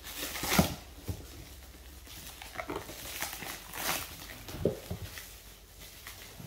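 Black plastic wrapping being torn and ripped off a cardboard box: irregular crinkling and rustling of the plastic, with a few sharp rips and knocks.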